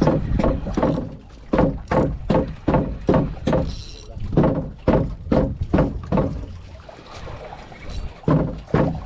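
A spinning reel being cranked fast to bring up a line: a rhythmic swishing thump with each turn of the handle, about two or three a second. The strokes stop about six and a half seconds in and come back briefly near the end.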